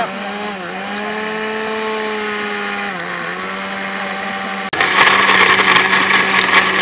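Electric countertop blender running, its blades chopping watermelon chunks into juice; the motor's pitch sags briefly twice as the fruit loads the blades. About two-thirds through it turns suddenly louder and rougher.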